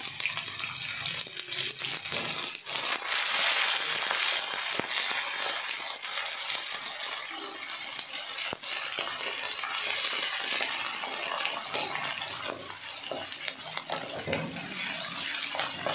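Sliced onions sizzling in hot oil in a kadhai as they fry towards red-brown, stirred with a spoon that scrapes and knocks against the pan a few times.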